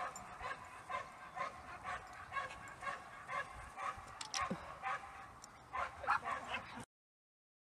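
A dog barking and yipping over and over, short high barks about every half second, with a louder run of barks near the end before the sound cuts off suddenly.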